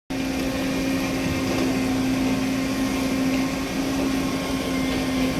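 An engine running steadily, a constant hum over a noisy drone that stays even throughout.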